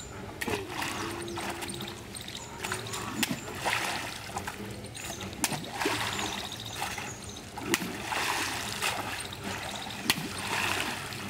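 Cast net being hauled out of shallow muddy water: irregular splashing, several sharp slaps as the fish caught in the net thrash, and water pouring and dripping from the mesh as the net is lifted.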